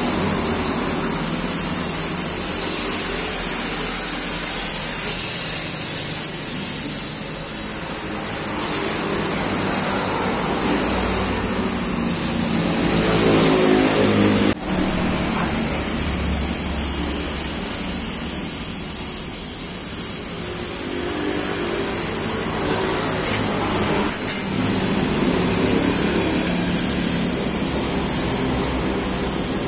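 Car engine running, its pitch rising and falling a few times as it is revved, with a steady high-pitched hiss over it.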